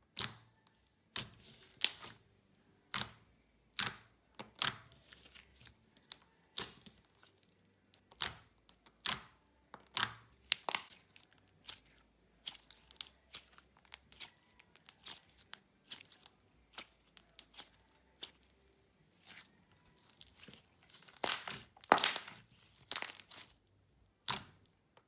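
Clear jelly slime being poked and squished by hand, giving a string of separate sharp squelching pops as air bubbles burst. The pops are irregularly spaced, with a louder cluster near the end.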